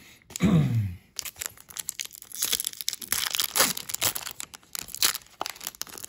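A trading-card pack wrapper being torn open and crinkled by hand: a dense run of irregular crackling and tearing, after a brief falling voice sound near the start.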